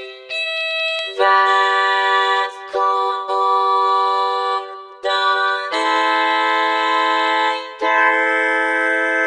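Music: held notes and chords that change every second or so, with no drums or bass line.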